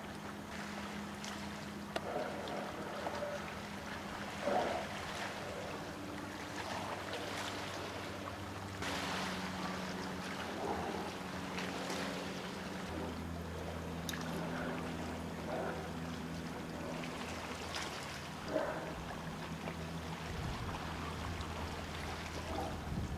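Boat engine running steadily across the water, a low drone whose pitch shifts down a couple of times, with a few brief puffs of noise over it.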